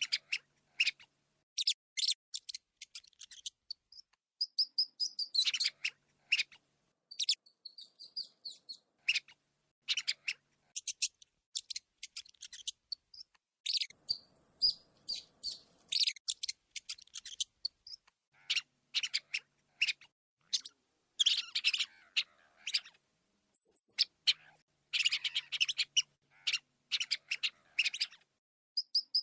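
Rats squeaking: many short, high-pitched squeals in rapid clusters, with brief pauses between clusters.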